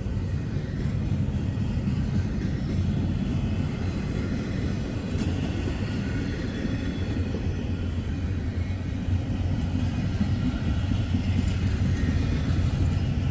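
Freight train cars rolling past on the rails: a steady low rumble of wheels.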